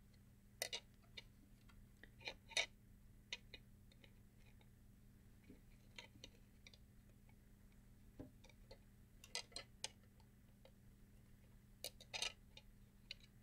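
Faint clicks and light taps of plastic parts being handled and snapped into place on the CD mechanism of a Bose Acoustic Wave CD3000, coming in small clusters: about a second in, around two and a half seconds, near ten seconds and near twelve seconds.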